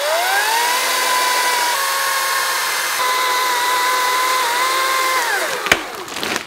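Ryobi electric chainsaw whining up to speed and running at a steady high pitch as it cuts into a small tree trunk, the pitch shifting slightly under load. It winds down about five seconds in, and a single sharp knock follows.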